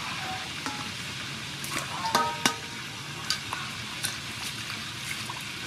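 Water swishing and splashing in a stainless steel bowl as leafy greens are washed by hand, with a few sharp knocks about two seconds in, one ringing briefly.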